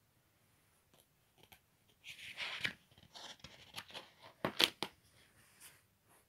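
Paper comic pages being handled and turned: a few light taps, then bursts of rustling and crinkling paper, loudest about four and a half seconds in.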